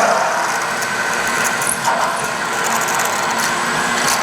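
Power drill running steadily, boring a pin hole into a steel sawmill mandrel.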